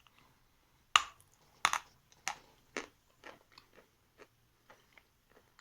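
A hard piece of Sever edible chalk bitten off with a sharp crunch about a second in, then chewed in a run of crisp crunches that grow fainter and sparser. The chalk is hard and brittle, 'hard and ringing', and bites with difficulty.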